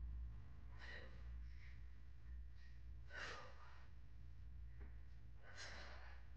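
A person breathing out in short puffs while doing leg lifts, three breaths about two and a half seconds apart, over a low steady hum.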